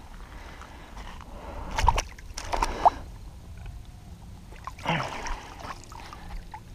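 Hooked flathead catfish splashing and thrashing in shallow water at the shoreline as it is landed, heard as a few short splashes and sloshes, loudest about two to three seconds in, with another near the end.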